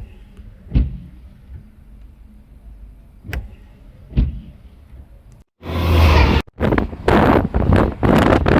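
A few short knocks over a quiet background, then, about five and a half seconds in, loud wind noise buffeting the microphone, broken by several abrupt gaps.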